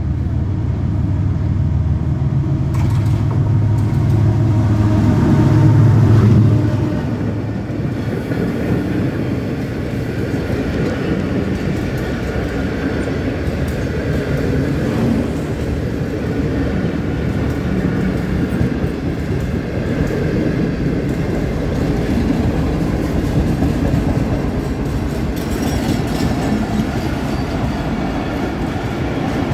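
A Pakistan Railways GEU-40 diesel-electric locomotive passing close with its engine running, loudest about six seconds in. After it, the steady sound of a long rake of passenger coaches rolling past on the track.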